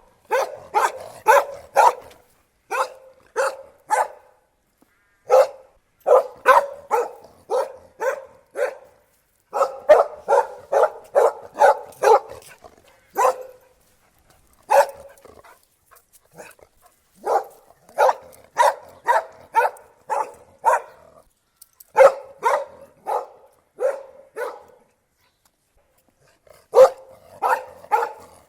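Dog barking in quick runs of short, sharp barks, two or three a second, with brief pauses between the runs, the longest near the end.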